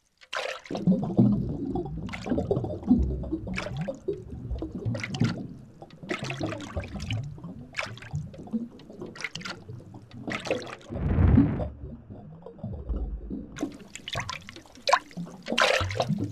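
Water sound effect for an underwater scene: continuous low gurgling and bubbling, with short splashy bursts about once a second and a longer, louder surge about eleven seconds in.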